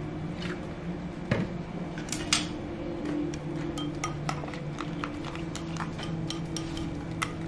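A utensil stirring a dipping sauce of chopped chillies, scallions, garlic and soy sauce in a ceramic bowl, clinking against the bowl in quick irregular taps. A steady low hum runs underneath.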